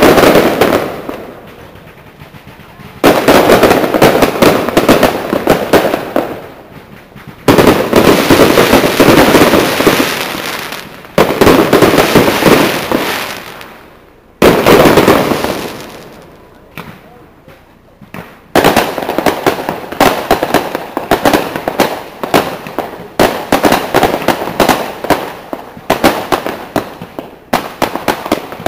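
Fireworks display: a series of salvos, each starting with a sudden bang and going on as a dense crackle that fades over a few seconds, coming every three to four seconds. In the last third the bursts run together into a steadier, continuous crackling.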